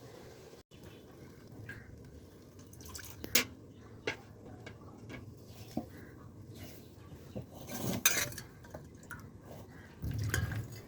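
Kitchen utensils knocking and clinking against pots or dishes a few times, the loudest clink about eight seconds in.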